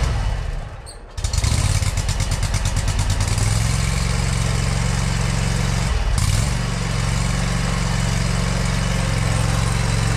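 Exmark stand-on lawn mower's engine running steadily as it drives a leaf plow. The sound drops away briefly about a second in and breaks again briefly near six seconds.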